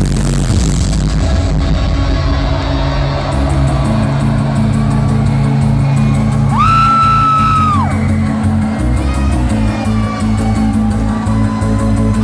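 Loud live electronic dance music over a festival sound system, heard from the crowd, with heavy bass throughout. A single high note is held for about a second and a half just past the middle.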